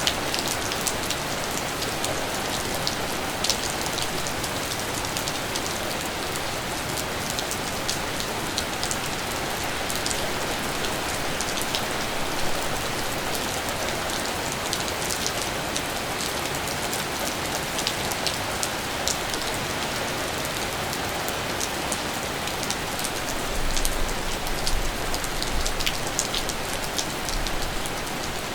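Steady rain falling, an even hiss with many separate drops ticking and pattering close by.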